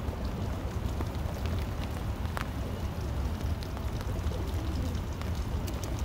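Rain falling, with scattered drips ticking over a steady low rumble.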